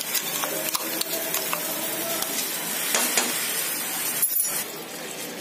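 Wet ground masala paste of onion and roasted spices sizzling as it goes into hot oil in a frying pan, with a steel spoon clinking and scraping against the grinder jar, then a silicone spatula stirring and spreading it. The sizzling gets quieter near the end.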